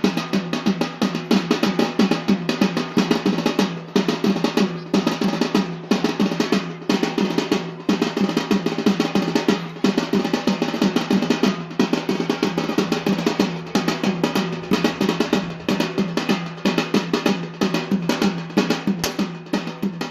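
Drums beating a fast, unbroken rhythm for the Yemeni bara' dance, over a steady low hum.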